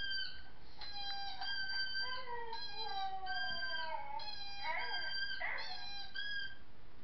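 Played-back recording of a Siberian husky howling and whining: several drawn-out, high-pitched calls that overlap, some held level and one long howl sliding down in pitch in the middle.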